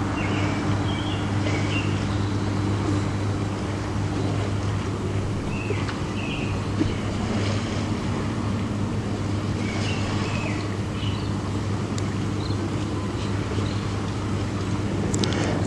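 A steady low hum with a constant hiss underneath: background noise of the recording. A few faint, short, higher-pitched chirps come and go within it.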